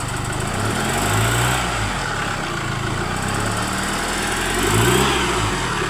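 2016 Chevrolet Trailblazer engine idling, then revved sharply and released twice, rising in pitch and falling back to idle each time. The revs are blipped to check for a ticking engine knock that comes and goes.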